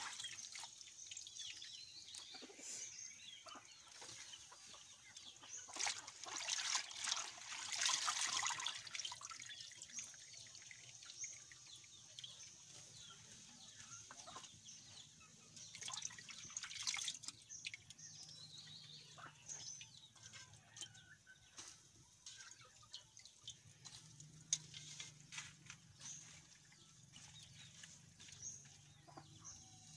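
Pot of pork sinigang broth simmering and bubbling over a crackling wood fire, with scattered pops and clicks. There are bursts of rustling as handfuls of leafy greens are pressed down into the pot.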